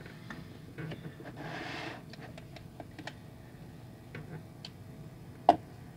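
Light clicks and taps of a small plastic and metal toy car being handled on a hard surface, with a brief soft hiss about a second and a half in and a sharper click near the end.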